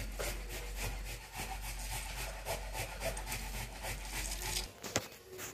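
Hands squeezing wet grated ash gourd to press out its juice, giving a repeated wet rubbing, squelching sound stroke after stroke. It stops abruptly near the end.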